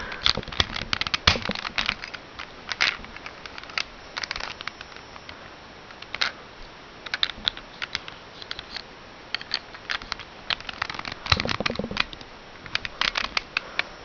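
Plastic pieces of a 3x3 Rubik's cube clicking and rattling as the last pieces are pressed into place and the layers are turned. The clicks come irregularly, with a denser, louder run of clicks and knocks a little past two thirds of the way through.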